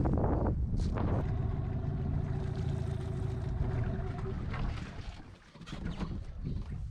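A motor running with a low rumble and a steady hum, fading away about five seconds in.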